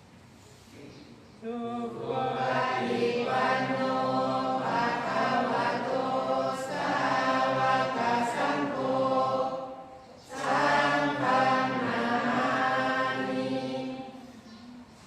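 Pali verses chanted in unison by a group in the slow, even style of Thai Buddhist evening chanting. The chant starts about a second and a half in, breaks off briefly about ten seconds in, then resumes and fades near the end.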